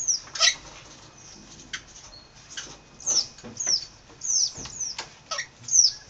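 Wild crimson rosellas giving short, high, squeaky calls, each sweeping quickly down in pitch, about nine in all with several close together in the second half.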